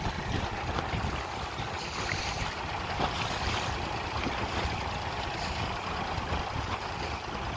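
Wind buffeting the microphone over the rush and splash of choppy water: a steady, gusty noise with a flickering low rumble.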